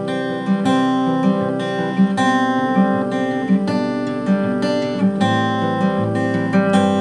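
Steel-string acoustic guitar fingerpicked in a Travis pattern, the thumb keeping an alternating bass under pinched and plucked treble notes. It runs through the verse chords, C major, C with B in the bass, A minor 7, with the bass note stepping lower as the chords change.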